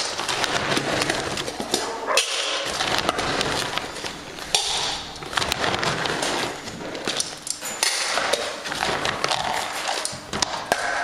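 Dog food bowls clattering and clinking, with scraping and several louder rustling spells.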